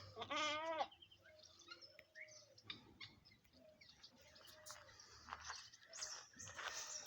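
A goat bleats once, a quavering call lasting under a second, followed by a few seconds of faint chirps and low background noise.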